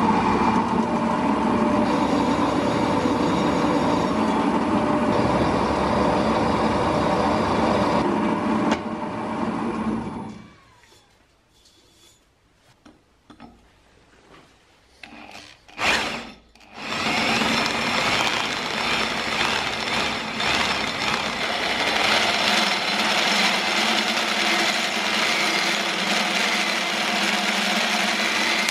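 Drill press running and a twist drill cutting into a thick-walled metal cylinder. After about ten seconds the drilling stops, a few knocks and clicks follow, and it starts up and cuts again a few seconds later.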